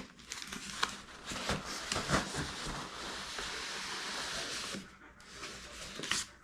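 A cardboard box being handled and turned over: scattered taps and knocks, then a steady rubbing, scraping hiss that fades out near the end.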